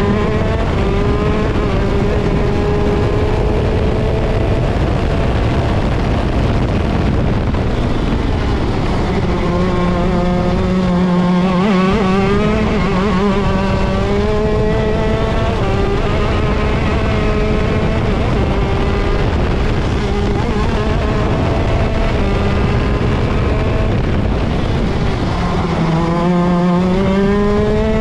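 ROK Shifter kart's 125cc two-stroke engine at full racing speed, heard from onboard. Its pitch climbs through the revs and drops back at each gear change, and twice sinks lower, about a third of the way in and near the end.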